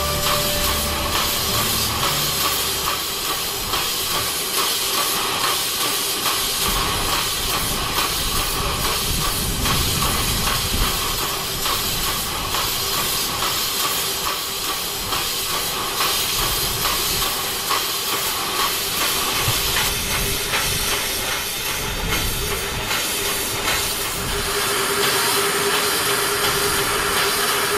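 Small one-foot gauge live-steam locomotive standing in steam, hissing steadily, with a steady tone in the hiss that grows stronger near the end.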